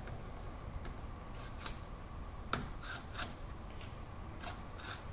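Short metallic scrapes and clicks from a dial indicator's clamp holder being slid onto and fitted to a steel rod held in a milling machine spindle. There are several brief scrapes, mostly in pairs, and one sharp click about halfway through.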